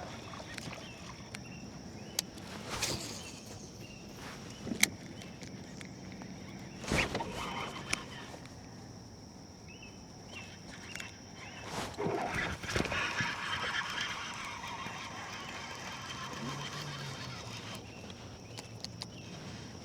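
Quiet outdoor ambience on the water with a steady high-pitched hum, broken by a few sharp knocks and clicks of gear handled in the canoe, and a brief rush of noise about twelve seconds in.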